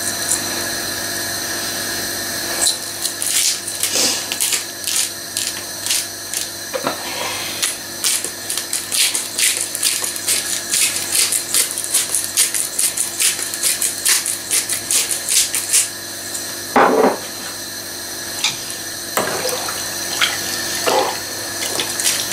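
Pepper mill being twisted over a pot of simmering soup: a long run of quick, crisp grinding clicks, about three a second, from a few seconds in until about two-thirds through, over the steady bubbling of the pot. Near the end come a few knocks of a spoon stirring in the pot.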